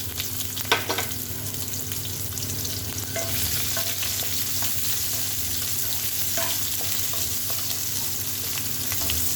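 Chopped onion frying in hot mustard oil in a kadai, a steady sizzle with stirring and small crackles, and a knock against the pan just under a second in.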